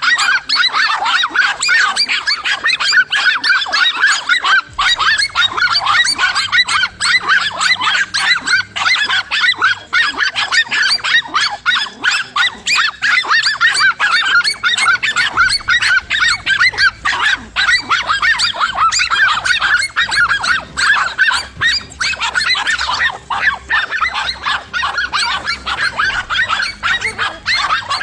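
Several dogs barking and yapping at once in a continuous frenzy, many short overlapping barks with no pause.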